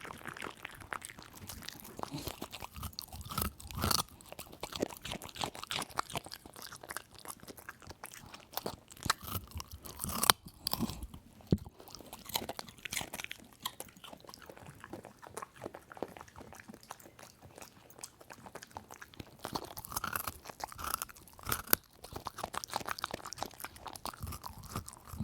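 A dog chewing a raw carrot: irregular wet crunches and crackles as the teeth break the carrot, with a few louder bites about 4, 10 and 21 seconds in.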